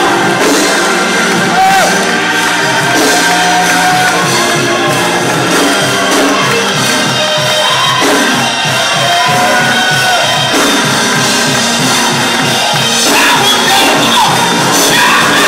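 Live gospel music with a steady beat, with voices singing and a congregation shouting and cheering along.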